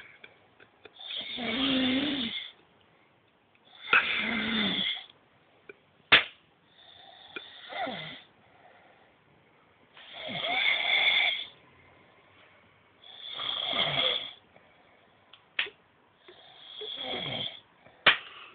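A person snoring heavily: six long rasping snores, about one every three seconds. Three short sharp knocks fall between them, the loudest about six seconds in.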